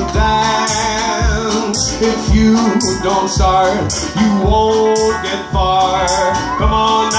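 Live band playing an upbeat country-blues tune: a strummed resonator guitar and an upright bass over a steady beat of sharp hits about twice a second.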